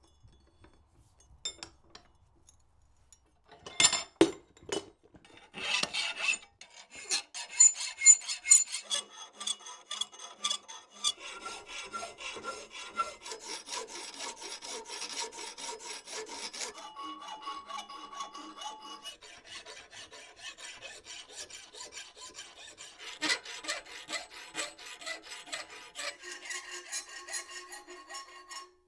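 A hand file scraping in repeated strokes across a wrought-iron latch handle, after a few sharp metal knocks at the start.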